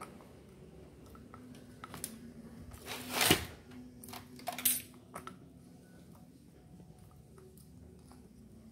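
Drill parts handled on a workbench: scattered light clicks, with a loud short scrape about three seconds in and a second, briefer one about a second later.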